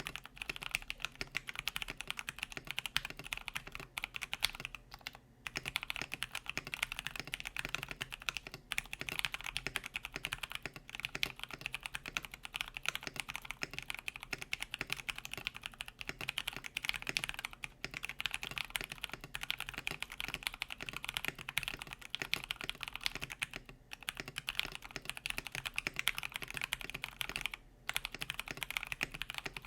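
Steady fast typing on a KBD67 Lite R1 mechanical keyboard with factory-lubed Pewter tactile switches, a polycarbonate plate and PBT keycaps: a dense run of keystrokes with a low rumble, broken by a few short pauses.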